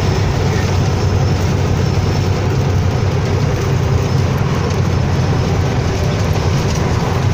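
Semi-truck's diesel engine droning steadily with tyre and road noise, heard from inside the cab while cruising.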